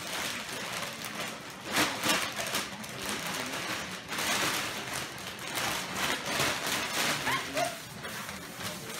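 Clear plastic bag crinkling and rustling continuously as a cat moves around inside it, dragging it across a tile floor.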